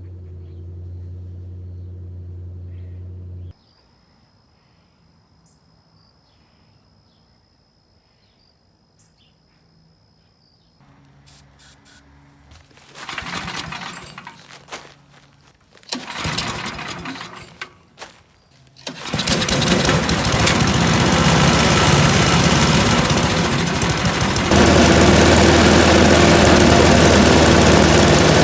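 A steady low hum that stops abruptly about three seconds in. Then the 1989 Mighty Mac wood chipper's small gasoline engine is pull-started: several short bursts of cranking and sputtering, before it catches past the middle and runs steadily. Its running gets louder near the end as the throttle is opened.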